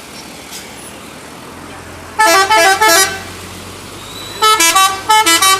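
Bus telolet horn, a multi-tone musical air horn, playing quick stepping tunes of short notes: one phrase about two seconds in and a choppier run of short blasts near the end, over a low engine hum.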